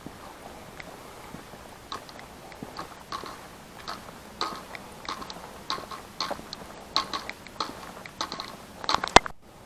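Footsteps crunching on dry leaves and twigs along a forest path, at an irregular walking pace. A sharp knock about nine seconds in, with the sound cutting out for a moment just after.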